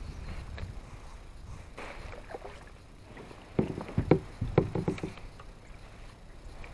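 Quick knocks and thumps against a kayak, a cluster of them a little past halfway, over a low steady wash of water and wind.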